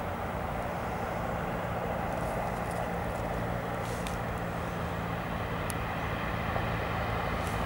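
Cessna 172M single-engine light aircraft, its four-cylinder piston engine and propeller making a steady drone that grows slightly louder.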